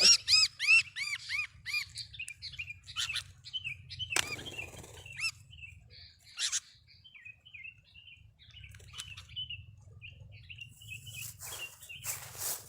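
Sooty-headed bulbuls calling: a fast run of arched chirps, about four a second, for the first two seconds, then scattered short chirps. Short bursts of wing flapping come about four seconds in, near the middle, and again near the end.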